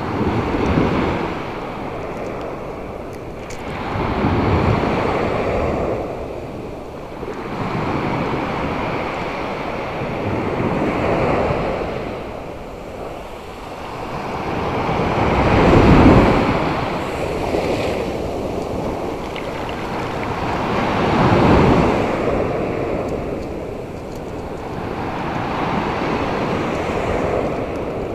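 Sea surf breaking and washing up over a sandy beach, surging and fading every few seconds, the strongest surge a little past halfway.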